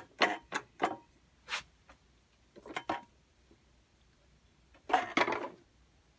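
Short, sharp metal clicks and knocks from a shop press being worked to straighten a screwdriver blade's tip, the steel shaft pressed against a steel plate on plywood blocks. A longer scraping, handling sound comes about five seconds in.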